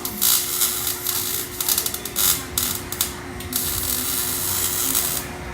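Pneumatic ratchet working on exhaust fasteners in repeated bursts of hissing rattle, with short pauses between them, over a steady hum.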